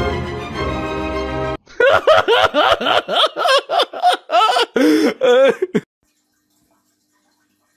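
Background music for about a second and a half, then a person laughing in rapid, high-pitched bursts for about four seconds, which stops abruptly.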